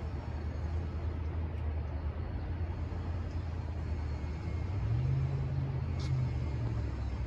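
A low engine hum runs steadily, with its pitch rising for a second or so about five seconds in and then settling back.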